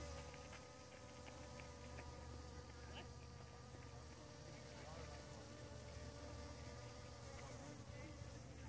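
Honeybees buzzing in flight around the flowers: a faint, steady hum of their wings.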